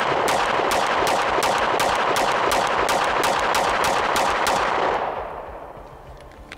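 Rapid string of 9mm pistol shots from a compensated SIG Sauer P365X Macro firing 124-grain hollow points, about three to four shots a second, stopping about four and a half seconds in as the echo dies away. The pistol cycles the hollow points with no failures.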